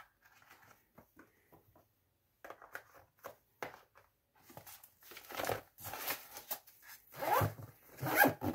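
Light clicks and rustles of small items being packed into a fabric tool pouch, then the Maxpedition pouch's zipper pulled shut in several strokes over the second half.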